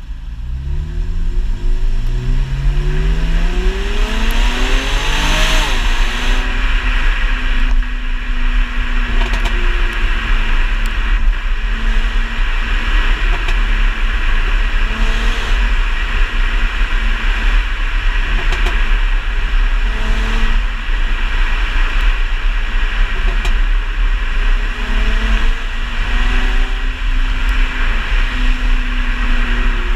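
Mercedes-Benz C350 coupe's V6 accelerating hard for about five seconds, its pitch climbing, then backing off and running on at lower, steadier revs under a constant rushing noise. Scattered sharp pops and crackles follow on the overrun. The car runs an ECU tune still in development, whose crackles come two to three seconds after lift-off.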